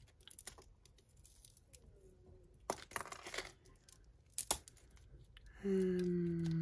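Costume jewellery being untangled by hand from a pile: metal and shell pieces clicking and clinking, with plastic bag crinkling, and two sharp clicks. Near the end a short low hum that falls slightly in pitch.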